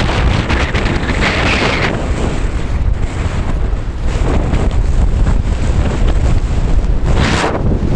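Strong gusting mountain wind buffeting the microphone: a heavy, constant low rumble with hissing surges at about a second in and near the end.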